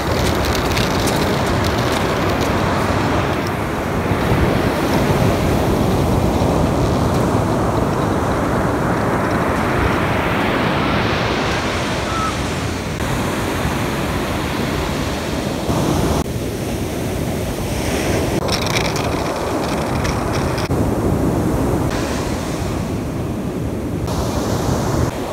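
Ocean surf breaking, a loud steady rush that swells and eases, with wind buffeting the microphone.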